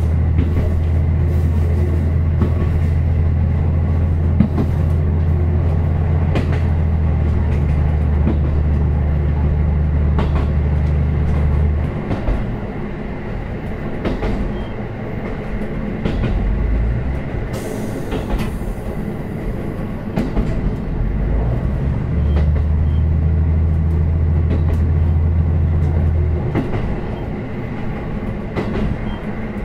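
KiHa 54 diesel railcar running, heard from on board: the diesel engine drones under power for about the first twelve seconds, then drops away as the car coasts with wheels clicking over the rail joints. The engine drone returns for a few seconds about two-thirds of the way in, then falls away again.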